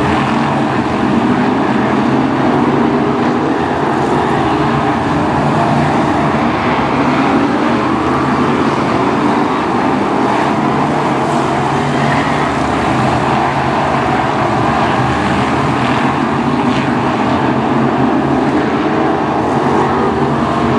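Several BriSCA F1 stock cars' V8 engines running together, loud and steady with no big revs or pauses.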